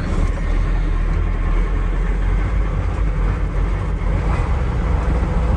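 KAMAZ truck's diesel engine running steadily under way in second gear, a low, even drone heard from inside the cab.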